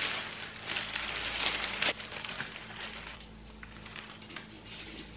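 Brown kraft wrapping paper rustling and crinkling as it is pulled open around a bunch of artificial tulips. It is loudest in the first two seconds, then quieter, with a few light ticks.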